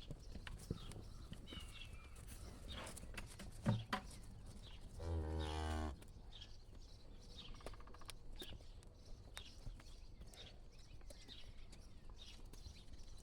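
A cow moos once, a low call lasting about a second, about five seconds in. Shortly before it there is a brief loud low thump, with faint scattered clicks throughout.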